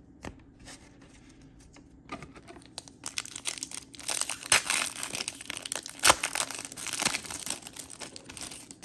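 Foil trading-card pack wrapper being torn open and crinkled by hand. A few light clicks come first, then from about three seconds in a long run of crackling with two sharp rips.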